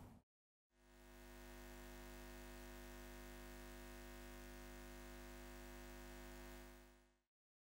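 Near silence, with a faint steady hum that fades in about a second in and fades out near the end.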